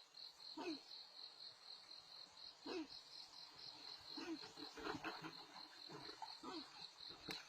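Faint, steady high-pitched insect trilling, with a few faint short sounds in the background.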